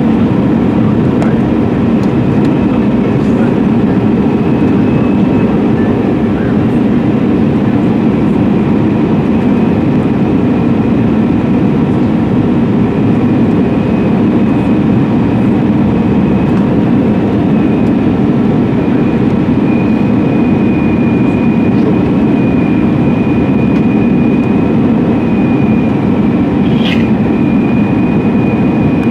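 Steady engine and airflow noise inside the cabin of an Airbus A320-200 on approach, with a faint high whine that grows a little stronger in the second half. A brief sharp chirp sounds near the end.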